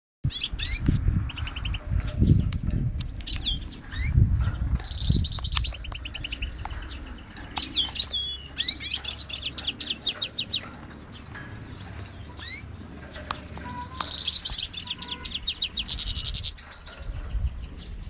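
Goldfinch × canary hybrid (mule) singing a fast, varied song of chirps and sweeping notes, broken twice by very rapid trills, about five seconds in and again near the end. A low rumble on the microphone runs under the first few seconds.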